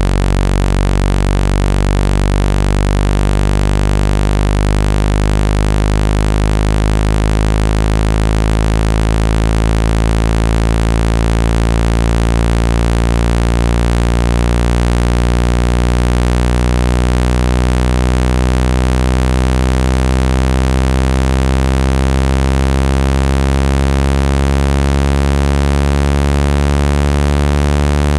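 Speaker-cleaning tone: a loud, steady low synthetic buzz with many overtones, played to shake water and dust out of a phone speaker. Its overtones slowly beat and shift against each other.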